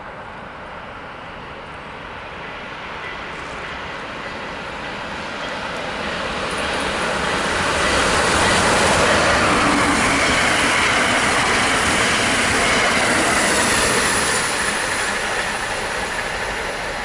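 Amtrak electric passenger train passing through the station at speed: its rumble and wheel-on-rail noise swell as it approaches, are loudest for several seconds as it goes by about 8 seconds in, then fade as it recedes.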